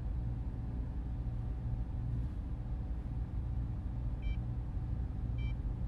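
A steady low ambient drone, with two short high beeps about four and five and a half seconds in.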